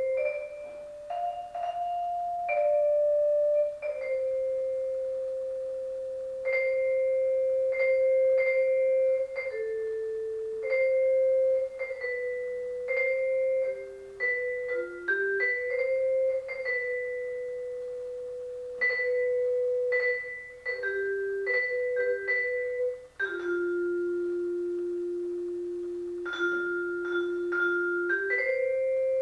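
Vibraphone played by two players with mallets: long ringing notes struck again and again on the same pitch, with short higher notes over them, some notes damped off sharply. Near the end a lower note is held for several seconds under repeated higher strikes.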